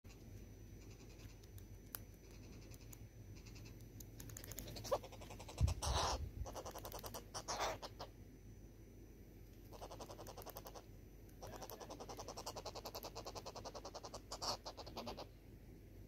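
Southern red-billed hornbills calling in bouts of rapid clucks, three runs in all, the last lasting almost four seconds. A single low thump comes during the first run.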